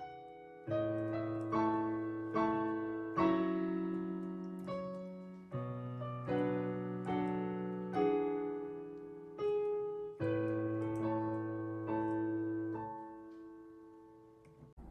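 Background piano music: a slow melody of struck notes and chords, each one decaying, fading out near the end.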